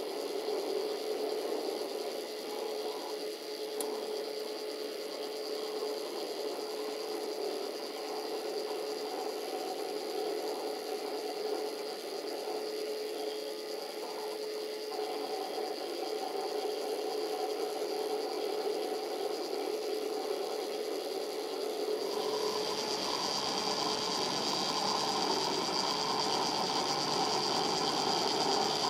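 Fused-filament 3D printer running as it extrudes plastic: a steady mechanical whirr with a held hum from its motors. About 22 seconds in the sound changes, becoming fuller and brighter.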